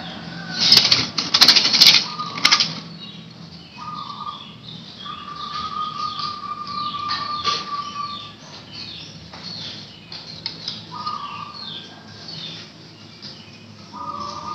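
Caged zebra dove flapping its wings for about two seconds near the start, a loud flurry of beats. Afterwards small birds chirp in the background and a steady high tone sounds a few times.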